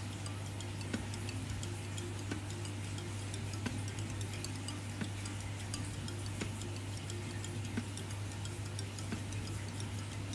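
Felt-tip marker colouring on a small printed photo, giving faint soft ticks and light scratches, some about every second and a half, over a steady low hum.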